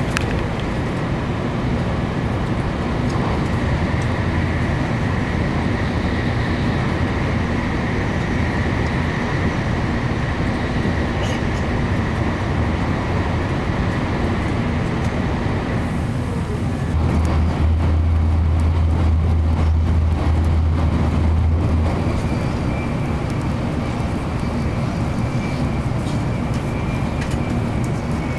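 Cabin noise inside a Nozomi Shinkansen bullet train running at high speed, partly in a tunnel: a steady rush and rumble, with a heavier low drone for about five seconds past the middle.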